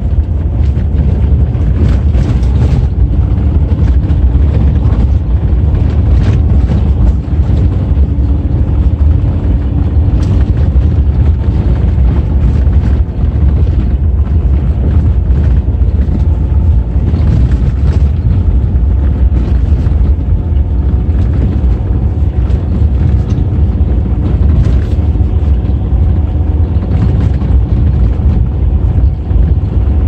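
Car cabin noise while driving a rough unpaved mountain road: a loud, steady low rumble of engine and tyres on gravel, with repeated knocks and jolts as the car hits bumps and stones.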